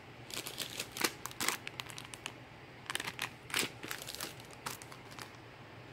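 Crinkling of clear plastic packaging on packs of paper-flower and gear craft embellishments as they are handled and set on a table: a run of short crackles and light taps that stops near the end.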